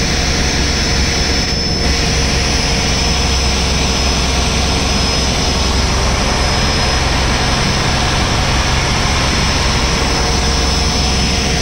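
Fishing boat's engine running steadily under way: a loud, even drone with a steady high whine over it.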